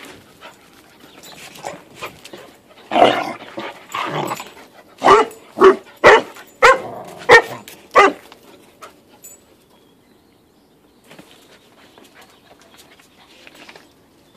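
Dogs at play: a rough, noisy stretch about three seconds in, then six short barks about half a second apart, after which it goes quieter.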